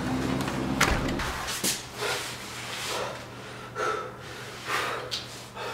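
A door shutting with a sharp knock about a second in, then a man panting and gasping heavily, about one loud breath a second, out of breath from running.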